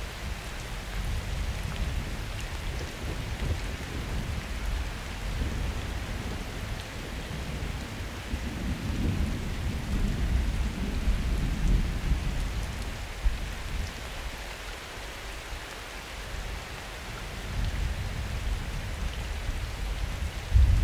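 Steady summer rain falling, with thunder rumbling low underneath; the rumble swells about halfway through and builds again near the end.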